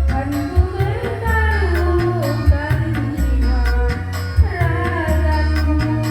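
Music played loud through a sound system: a melody that glides up and down in pitch, sung or played, over a heavy, booming bass beat with regular drum strokes.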